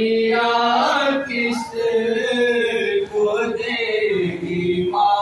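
A group of men chanting a noha, a Shia Muharram lament, in unison without instruments, holding long notes.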